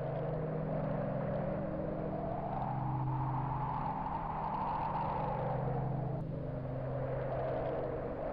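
Ambient music: a sustained low synthesizer drone of several held notes, under a soft hiss that slowly rises and falls in pitch.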